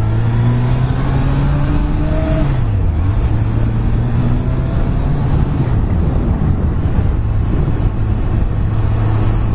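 Honda CBR1100XX Super Blackbird's inline-four engine running on the move, under steady wind and road noise. The engine note dips briefly near three seconds and again near six seconds, then settles back.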